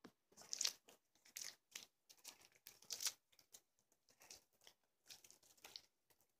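Sticky peanut butter slime being squeezed and pulled apart between the fingers, making faint, irregular short clicks, the loudest about half a second in and about three seconds in.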